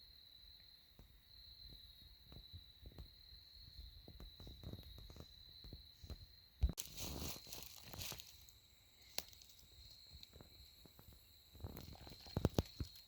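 Footsteps and rustling through dry leaves and brush, with a sharp thump and a burst of rustling about seven seconds in and a cluster of steps near the end. A steady high-pitched hum runs underneath.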